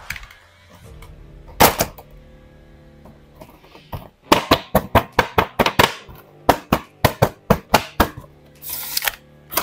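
Stiff plastic blister packaging of a boxed action figure being handled and crackling: one sharp crack, then a quick run of sharp crinkles, about three or four a second, for several seconds, and a short rustle near the end.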